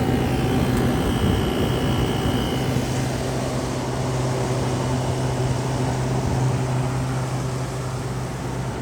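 Frigidaire window air conditioner running: the steady whir of its fan over a low, constant hum.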